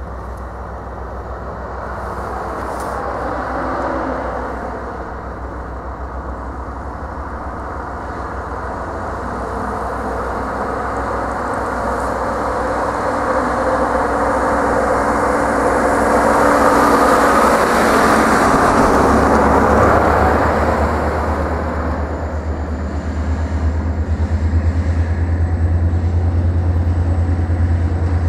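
A bus passes close by on the road, its noise rising to a peak and fading a little after twenty seconds in. From about nineteen seconds a deep, steady diesel engine drone comes in and holds as Fepasa's two diesel locomotives, D-2355 and D-2358, approach with a container freight train.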